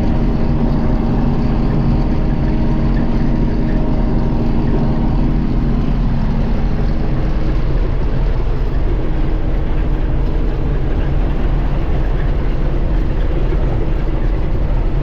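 Combine harvester running steadily while harvesting wheat: a continuous loud engine and machinery drone. A few higher steady tones in it fade out about six seconds in.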